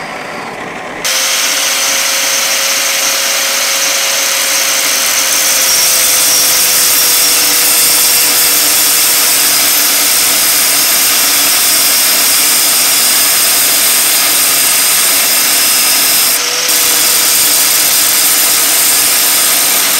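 Angle grinder in a stand running and grinding into a round steel bar pressed against the disc, cutting a flat for a form-fitting joint. It is a loud, steady hiss with a whine that sinks slightly in pitch under load. It starts about a second in and dips briefly near the end.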